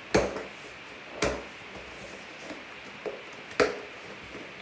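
Cardboard mailer box being handled and opened: three sharp knocks, one at the start, one about a second in and one near the end, with a fainter tap just before the last.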